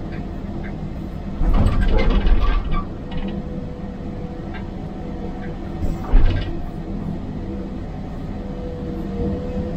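Hydraulic excavator running, heard from inside the cab: a steady engine hum with a faint steady whine. Concrete rubble clatters and scrapes under the bucket in two louder bursts, about a second and a half in and again about six seconds in.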